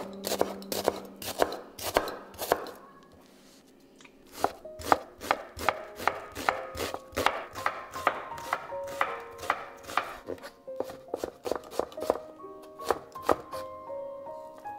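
Chef's knife chopping red onion on a wooden cutting board: quick knife strikes, about three a second. A pause of about a second and a half comes a few seconds in, then a long run of chopping.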